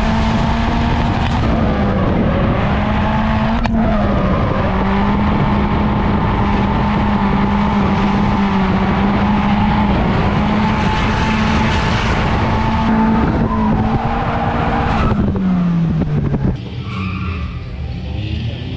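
Turbocharged Mazda Miata's engine held at a steady high pitch through a drift, with tyres squealing. The pitch eases and recovers briefly once or twice and falls away near the end as the car comes off the throttle. Then the sound drops to a quieter, more distant mix.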